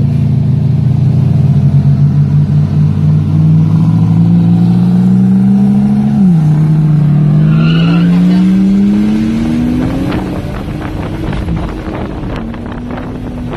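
Turbocharged Toyota 1UZ V8 in a KE20 Corolla accelerating hard. The engine note rises, drops sharply in pitch at an upshift about six seconds in, then climbs again. It grows fainter as the car pulls away spinning its rear tyres in a smoking powerskid.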